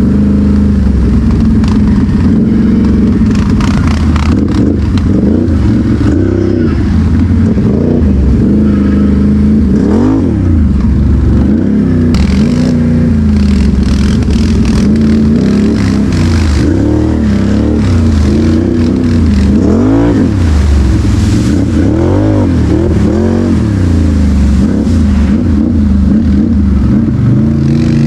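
ATV engine running loudly while being ridden, its pitch rising and falling again and again as the throttle is worked.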